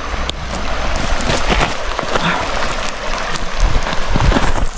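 Footsteps scuffing and crunching on loose gravel and dirt on a steep slope, with scattered clicks of stones and a few low thumps near the end.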